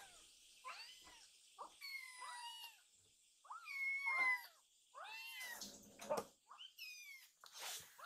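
Two young kittens meowing over and over in short, high-pitched, rising-and-falling calls, sometimes overlapping, the loudest about four seconds in; they are begging for food.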